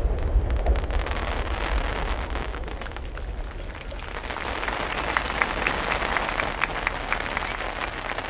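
Spectators clapping after a fireworks burst, over the low rumble of the last shells that fades in the first second or so; the clapping grows denser about halfway through.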